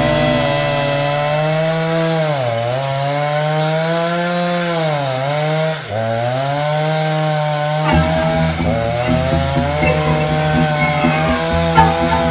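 Ogawa Pro VX8224 two-stroke chainsaw with a 28-inch bar, running at high revs with its pitch dipping briefly twice. From about eight seconds in it runs rougher, with the rasp of the chain cutting into a large tree stump.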